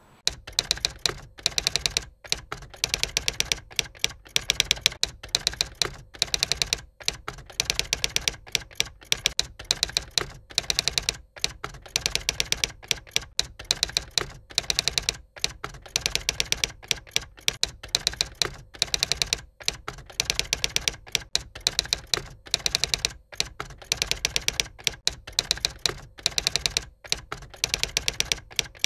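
Typewriter keys clacking in a rapid, steady stream of strikes, broken by brief pauses, as text is typed out.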